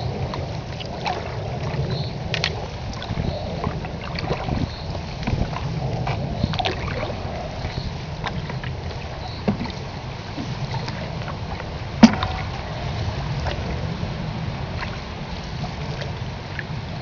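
Open canoe being paddled: water splashing and dripping with the paddle strokes and light knocks on the hull, over a steady low rumble. One sharp knock stands out about twelve seconds in.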